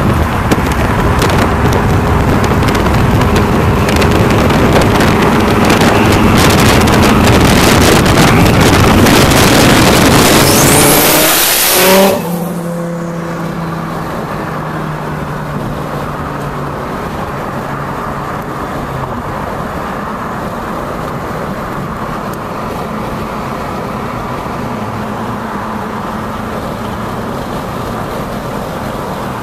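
Twin-turbocharged 8.3-litre V10 of a 2006 Dodge Viper SRT-10 accelerating hard alongside, very loud and building, with wind on the microphone and a rising whine near the end of the pull. About twelve seconds in it drops suddenly to the steady engine and road noise inside the following car.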